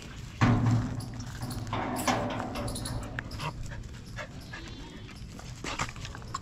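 Dogs vocalizing, loudest in a burst about half a second in, with further short sounds through the rest.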